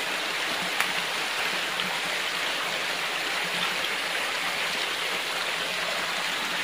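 Steady rush of water flowing over rocks in a stream, with a single sharp click about a second in.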